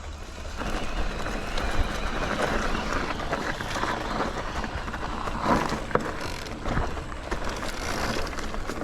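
Electric mountain bike rolling over a wet dirt trail: steady tyre and ride noise with a low rumble and a few sharp knocks from the bike going over bumps.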